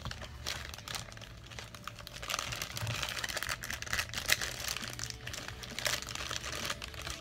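Clear plastic packaging bag of 1-inch wooden craft cubes crinkling as it is handled and opened, with a few sharp light clicks.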